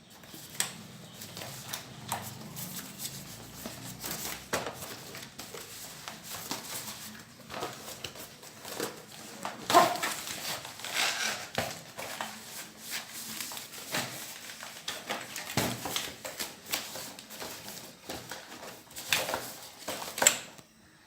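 Packaging being handled during an unboxing: irregular rustling of the keyboard's plastic cover and box, with scattered clicks and light knocks.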